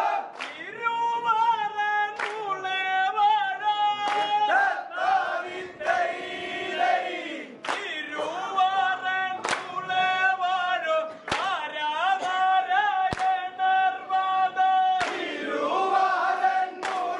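A group of voices singing a slow melody together, with long held notes that waver and glide. Sharp clicks fall about every two seconds in a steady beat.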